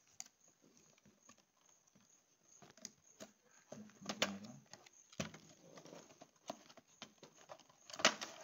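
Cardboard box being opened by hand: a seal sticker picked and peeled off, then the end flap pulled open, with scattered taps, scrapes and rustles of the carton. The loudest tap comes near the end.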